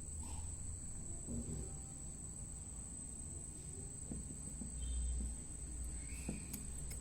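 Faint, scattered light clicks of a bicycle rear derailleur's cage plate and pulley parts being handled and fitted back together, under a steady high-pitched whine.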